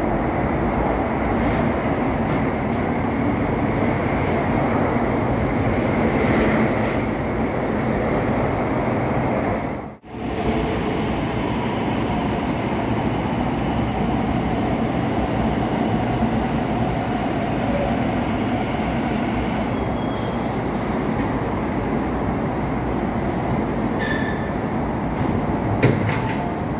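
MTR East Rail Line electric train running past close by along a station platform, a steady rumble and hiss of wheels and traction. There is a cut about ten seconds in, after which another train arrives and pulls out, with a couple of short high squeals near the end.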